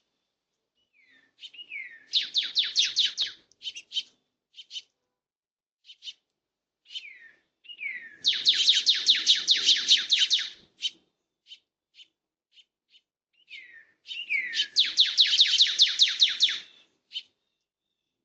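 A small songbird singing three times. Each phrase opens with a downward-slurred note and breaks into a rapid trill of high notes, with short single chips between the phrases.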